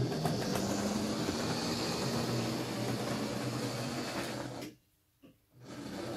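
Model railway locomotive running on the layout's track: a steady motor hum and wheel noise. The sound cuts out for about a second near the end, then starts again.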